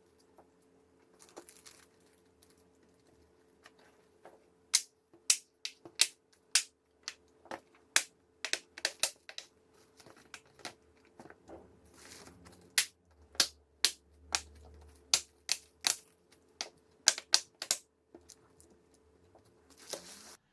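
Irregular sharp clicks and taps of a laptop's plastic case and parts being handled and fitted, up to a few a second, thickest from about four seconds in.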